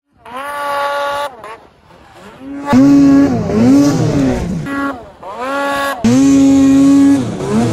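Snowmobile engine with an aftermarket MBRP exhaust, revved hard several times while the sled plows through deep powder. Each time the pitch climbs, holds high for about a second and then drops. The longest hold comes near the end.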